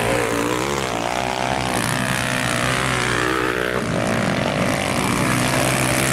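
Several motocross dirt bike engines running and revving on the track, their overlapping pitches rising and falling as the riders work the throttle.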